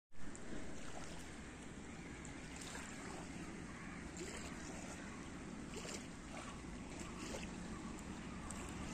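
Steady outdoor waterside ambience: wind on the microphone and lapping water, with a few faint ticks.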